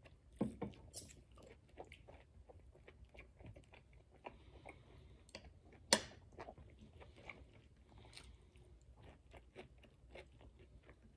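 A person chewing a mouthful of grilled vegetables and steak close to the microphone: a run of small wet mouth clicks and soft crunches, with one sharp click about six seconds in.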